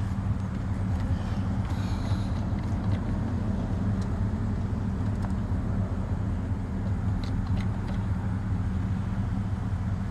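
A diesel engine running steadily at idle, with a few light metallic ticks from tools.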